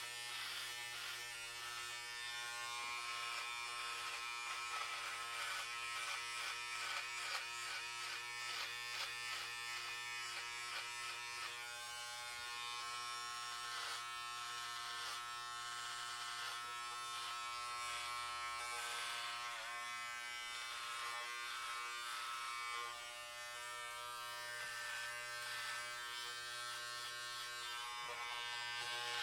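Electric hair clippers buzzing steadily while cutting hair, the buzz wavering now and then.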